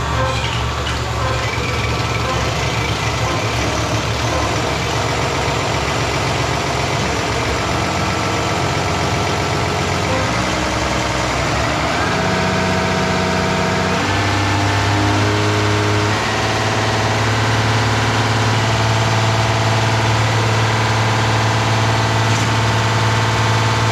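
Bosch diesel injection-pump test bench running, its drive motor turning an in-line injection pump that sprays diesel into the measuring glasses. A loud, steady machine hum whose pitch steps up and down a few times partway through as the bench speed is changed.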